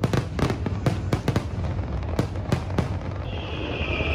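Fireworks going off: a fast, irregular run of sharp bangs and crackles that stops about three seconds in. A steady high-pitched hiss then takes over.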